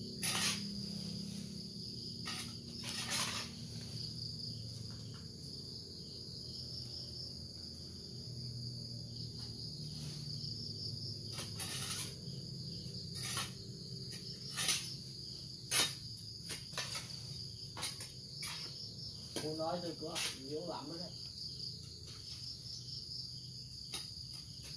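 Steady chorus of insects chirping, with irregular short scrapes and knocks from digging by hand in soil and dry leaves.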